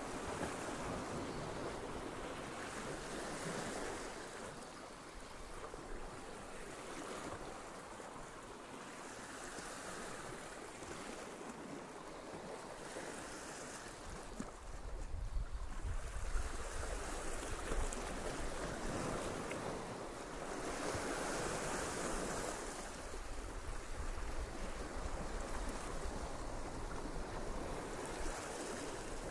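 Sea waves washing and breaking over rocks, swelling and falling back every few seconds, with wind rumbling on the microphone from about halfway through.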